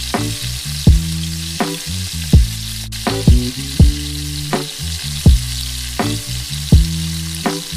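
Food sizzling in hot oil, a steady crackling hiss, under lo-fi background music with a steady beat and bass line.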